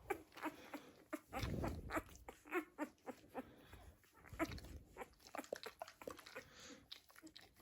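Week-old Dalmatian puppies making small squeaks and grunts amid wet licking and mouthing sounds from the dogs, with many little clicks and a couple of low rumbling bumps.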